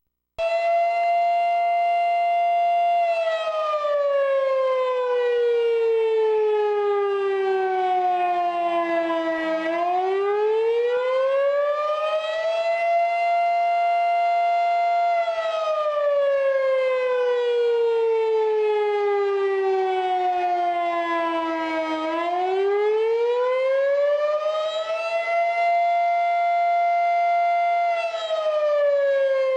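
Outdoor civil-defence warning siren wailing. It holds a high steady pitch for a few seconds, slowly winds down over about six seconds, then winds back up and holds again; this happens twice.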